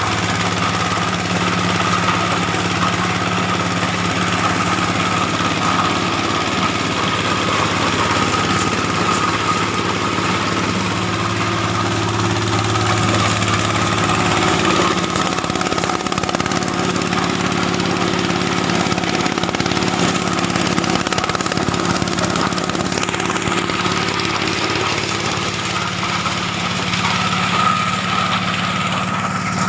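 SM-10 corn sheller, a machine that threshes corn without husking it first, running steadily under its engine, with a shift in the engine's low note about halfway through.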